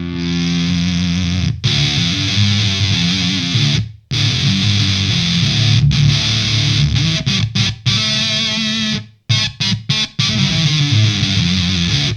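Electric guitar played through a Gamechanger Audio Plasma Pedal high-voltage fuzz, giving a thick, heavily distorted sound. Sustained chords stop abruptly several times, and a run of short choppy stabs comes between about seven and ten seconds in.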